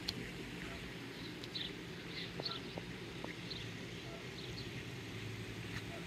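Swallows chirping around their mud nests: many short, high calls scattered through, over a steady low background rumble.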